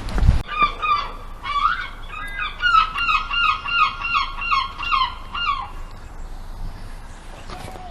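A flock of geese honking, many calls overlapping, for about five seconds before dying away. It opens with a brief low thump.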